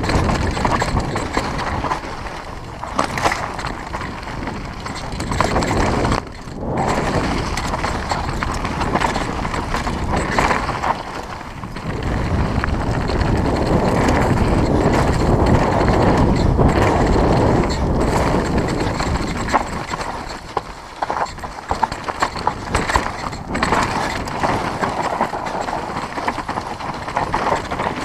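Mountain bike descending a rough dirt downhill track at speed: tyres rushing and crunching over loose dirt and rocks, with the bike rattling and knocking over the bumps.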